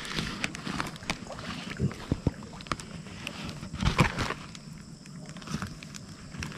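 Rustling and scattered light clicks from hands handling a hooked fish over a woven plastic sack, with one louder thump about four seconds in.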